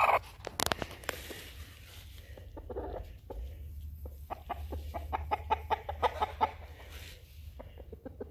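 A hen clucking in short, quick notes while held pinned to the ground, with a run of clucks from about four to six and a half seconds in. Sharp knocks and scuffling from handling her come at the very start.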